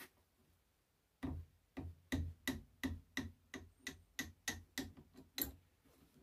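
A mallet tapping a metal drift punch to drive out the rear pin of a BSA Lightning XL SE air rifle's trigger assembly. About a dozen sharp taps with a slight ring, roughly three a second, start about a second in.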